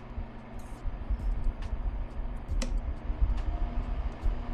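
Honeywell electric fan running with a steady low hum and a rumble of moving air. The hum is a little of the fan motor's magnetic coil, which the owner thinks is probably okay. A single sharp click comes about two and a half seconds in.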